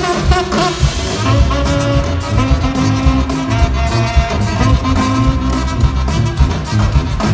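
Live jazz band playing, with a tuba bass line, saxophone and two drum kits. The drumming is dense and fast.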